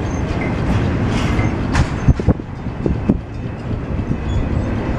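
Double-stack container train's well cars rolling past close by: a steady rumble of steel wheels on rail, broken by sharp knocks, the loudest a little under two seconds in. Faint high squealing tones come from the wheels.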